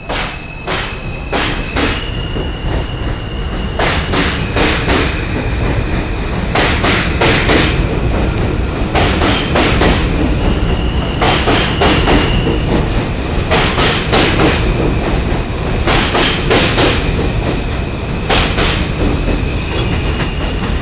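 R160A subway train running past along the platform, a heavy steady rumble with its wheels clacking over rail joints in groups of about four strikes as each car goes by, every two seconds or so. A thin high tone comes and goes above it.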